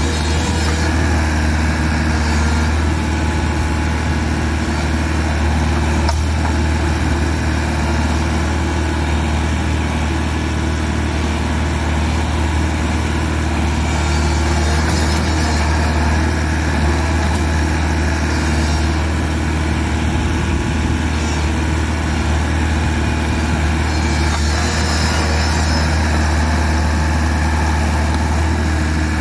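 Bobcat Toolcat 5600's diesel engine running steadily, with a strong low hum.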